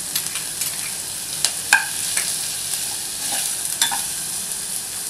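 Chopped vegetables sizzling in hot oil in a saucepan as diced carrot is tipped in and stirred, with a few sharp clicks and scrapes of a steel ladle against the pan.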